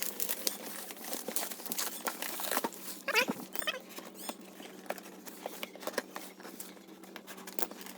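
Rustling and scattered small clicks of a MIG welder's packaging and contents being handled during unboxing, with a couple of short squeaky chirps about three seconds in.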